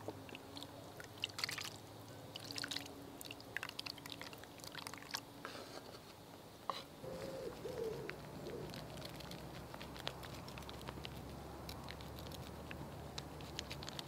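A spoon scraping and clicking against a cast iron Dutch oven as soup is poured out into a wooden cup, then the faint scratching of cheese being grated on a small hand grater.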